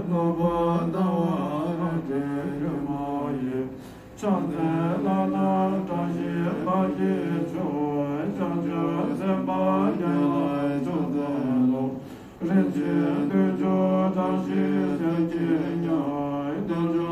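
Mantra chanting: a voice chanting in long sung phrases over a steady low drone, with short pauses about four and twelve seconds in.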